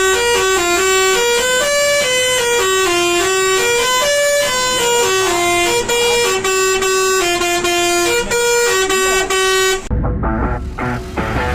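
Roots hexatone musical air horn, driven by a melody maker, playing a quick tune of stepped notes, each lasting a fraction of a second. The tune stops about ten seconds in, giving way to a rough, rumbling noise.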